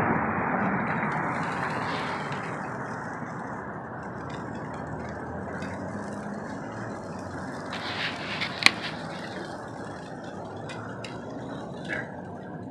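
Chicken thighs and steaks sizzling on a charcoal grill, a steady hiss that eases over the first few seconds. A few sharp clicks of metal tongs against the grate, the loudest about two-thirds of the way through.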